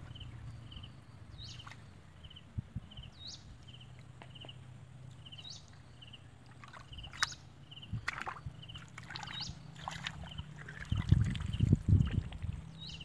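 Hands groping and sloshing in shallow muddy water, with short splashes that grow louder near the end. A faint high chirp repeats every second or two in the background.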